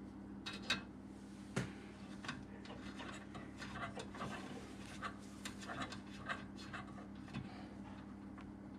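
Small irregular clicks and scrapes of fingers handling the metal fittings on top of a Wilesco D145 toy steam engine's boiler, over a steady low hum.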